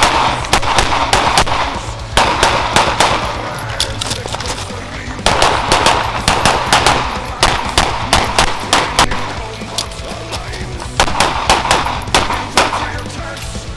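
Semi-automatic pistol fired in quick strings of shots, several clusters of sharp reports with short gaps between them as the shooter engages targets on a practical shooting stage.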